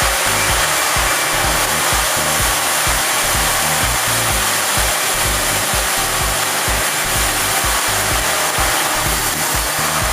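Automatic train-wash plant running: a steady, loud hiss of water sprays over the machinery, with an uneven low rumble beneath.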